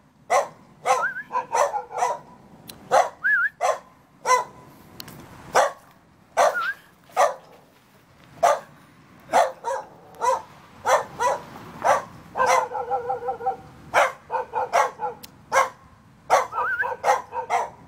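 Jindo dog barking over and over: short sharp barks about every half second to second. Some rise in pitch like yips, and there is a quick run of barks about two-thirds of the way through.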